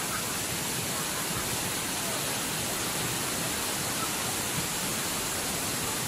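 Steady rushing of a waterfall cascading down tiers of rock ledges.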